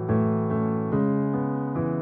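Background piano music: sustained chords with new notes struck about every half second.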